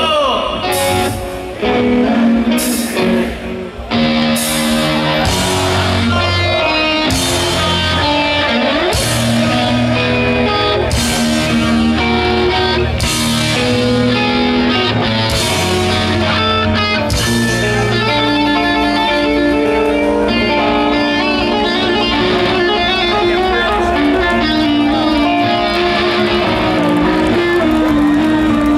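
Heavy metal band playing live through a festival PA: distorted electric guitars, bass and a drum kit, with crash cymbals accenting about every two seconds through the first half and a lead guitar playing fast runs over the band.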